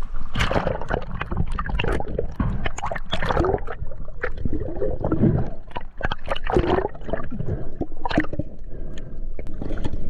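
Water gurgling and sloshing around a camera as it is taken under the surface in shallow water, with irregular splashes and a muffled low rumble.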